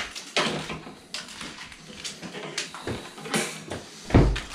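Electrical cable being dragged out of a chase in a plaster wall: a run of irregular scrapes and knocks, with a loud thump about four seconds in.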